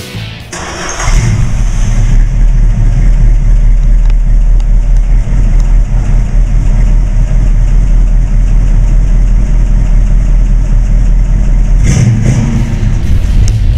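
1968 Plymouth Barracuda's 318 small-block V8 catching about a second in and then idling steadily with a low rumble.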